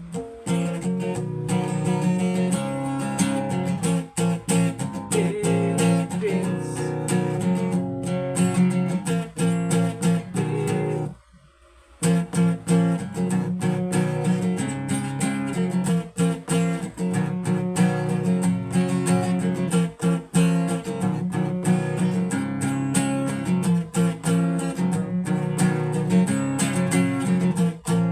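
Guitar strumming chords in an instrumental passage of a song, breaking off for about a second near the middle before carrying on.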